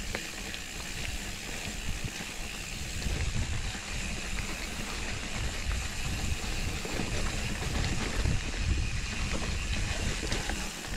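Mountain bike rolling down a dirt and leaf-litter trail, heard from a chest-mounted camera: a steady low rumble of wind and trail bumps on the microphone, with tyre noise and small scattered clicks and rattles from the bike.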